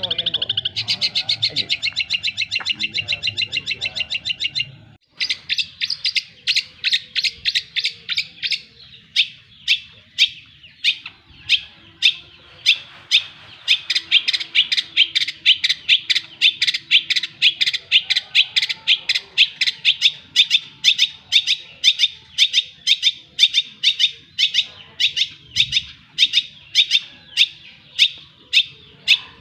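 Songbird calling: a fast high trill for about the first five seconds, then a long run of sharp, high chirps repeated about two to three times a second.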